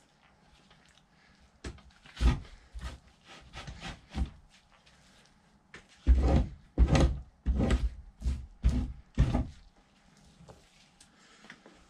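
Fleshing knife scraping fat from a raccoon hide stretched over a wooden fleshing beam: a few scattered strokes, then a quick run of about six strong strokes in the second half.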